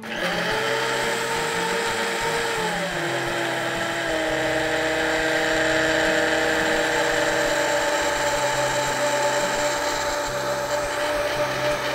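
Vitamix Vita-Prep 3 blender motor starting up and running steadily, blending seared foie gras with Greek yogurt and reduced veal stock into a smooth purée. Its whine shifts down in pitch about three seconds in, then holds steady.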